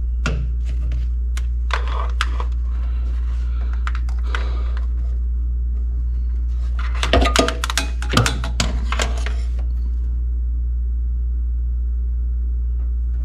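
Metal parts and hand tools being handled during exhaust header cleanup: scattered light scrapes and clicks, then a cluster of louder clinks and knocks about seven to nine seconds in, over a steady low hum.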